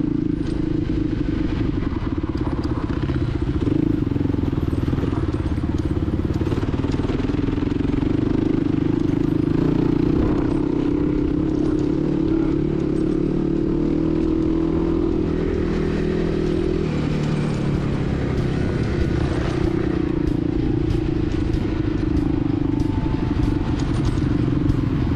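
Dual-sport dirt bike engine running under way, its pitch rising and falling with the throttle. In the second half, many sharp ticks and rattles join it.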